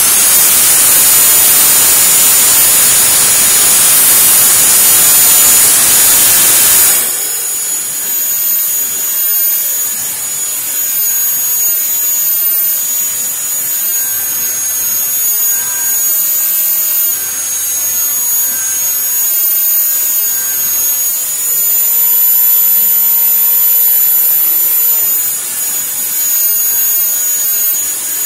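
Electric belt sander, turned upside down, running steadily with a high whine while a wooden transom knee is pressed against the belt to sand off saw marks and chamfer its edges. It is loudest for about the first seven seconds, then settles a little quieter.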